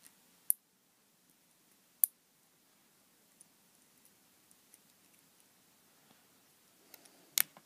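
Sharp clicks and light ticks from small parts being handled by hand. One click comes about half a second in and another about two seconds in, with faint ticks between, then a quick cluster of the loudest clicks near the end.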